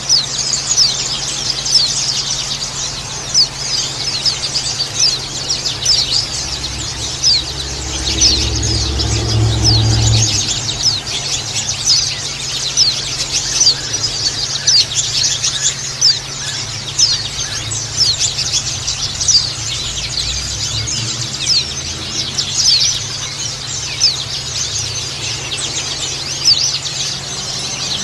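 A flock of white-eyes (pleci) chirping all together: many quick, high, falling chirps overlapping without pause. A low rumble sounds underneath about 8 to 10 seconds in.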